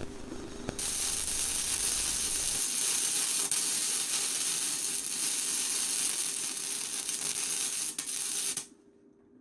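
Electric welding arc hissing and crackling steadily while reinforcing-bar hoops are welded onto a steel jack pole, cutting off suddenly near the end.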